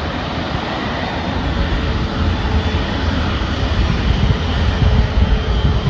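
Airbus A350-900's Rolls-Royce Trent XWB jet engines running as the airliner taxis: a steady jet rush with a faint whine over an uneven low rumble.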